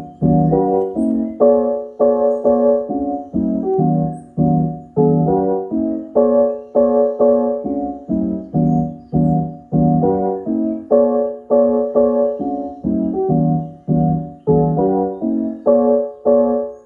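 Music played over a home speaker system: a keyboard riff of short, evenly repeated chords, about two and a half a second, with little deep bass.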